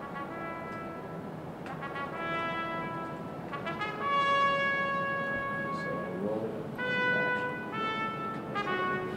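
Background music: a brass instrument playing a melody of separate notes, the longest held for about two seconds near the middle.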